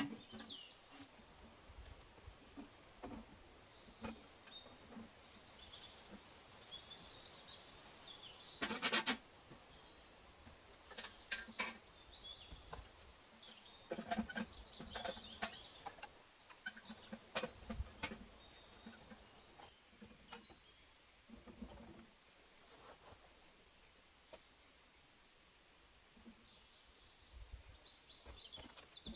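Small birds chirping on and off over quiet outdoor ambience, with scattered knocks and clatter from handwork, the loudest cluster about nine seconds in.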